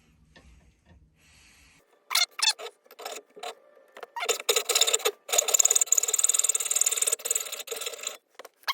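Mini lathe tool cutting grooves into a spinning metal handle: a few short scraping cuts, then a longer, continuous rasping cut for about three seconds near the end.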